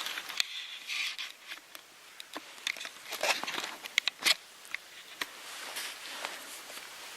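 Irregular rustling and crackling of dry leaves and twigs being stepped on or disturbed, with sharp snaps and clicks scattered through it; the loudest cluster comes about three to four and a half seconds in.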